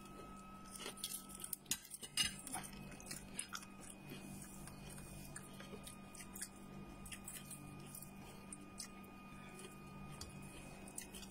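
Quiet eating sounds: chewing and small clicks of a gloved hand picking at roast chicken and salad on a plate, the clicks thickest in the first few seconds, over a steady low hum.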